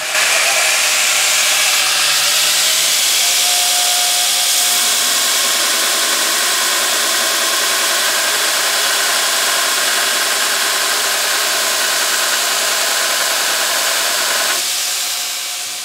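A jackhammer bit's steel held against a spinning pedestal grinder wheel for a spark test, giving a loud, steady grinding hiss that eases off near the end.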